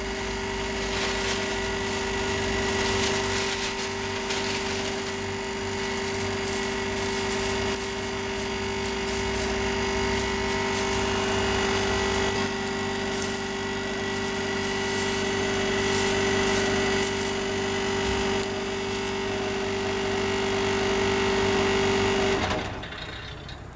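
Straw fire crackling under a bonito fillet held in a wire basket for searing, over a loud steady motor-like hum. The hum cuts off suddenly near the end.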